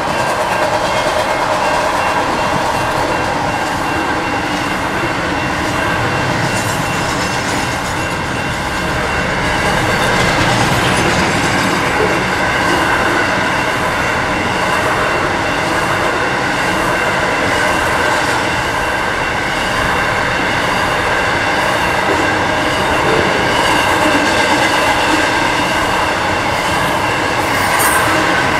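Double-stack container wagons of a freight train rolling past: a loud, steady rumble and rattle of steel wheels on the rails, with a continuous high-pitched wheel squeal over it.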